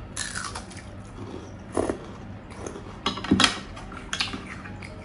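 Close-up eating sounds: a few short crunches and chewing noises, with a spoon clinking against the dishes, the sharpest about three seconds in.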